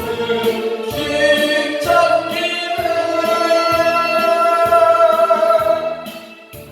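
Korean trot song: singing with band accompaniment, a long held note through the middle over a steady bass beat, fading near the end.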